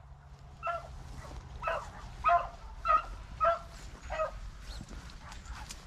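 Beagles baying on a rabbit's scent trail: a run of about seven short yelping cries, a little under two a second.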